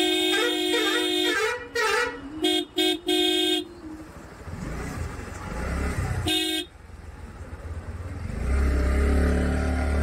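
Vehicle horns honking in a traffic jam: a long blast, then a run of short toots, and one more short blast about six seconds in, over the low rumble of traffic.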